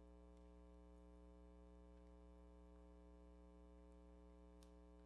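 Near silence: room tone with a steady low hum and a faint click near the end.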